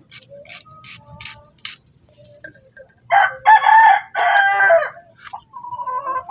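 A rooster crows about three seconds in, one loud two-part call lasting about two seconds. Before it come a few short crisp strokes of a boti blade slicing through onion.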